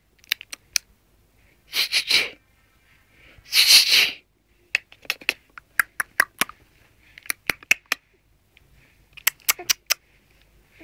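A baby's mouth sounds: a run of wet lip smacks and tongue clicks, with two breathy puffs of air about 2 and 4 seconds in.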